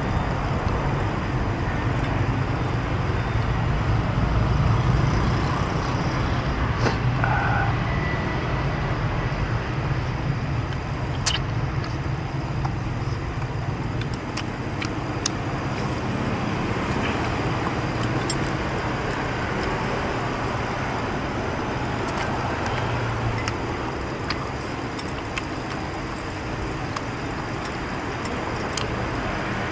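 Road traffic: a steady rumble of passing vehicles, louder in the first half. A few short sharp clicks sound over it.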